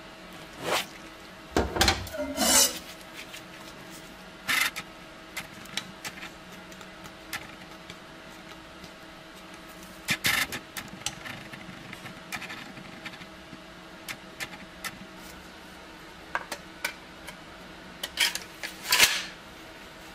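Steel K98 bayonet and its metal scabbard being handled and sheathed on a concrete floor: scattered metal clicks, knocks and scrapes, with louder clusters near the start and near the end, over a faint steady hum.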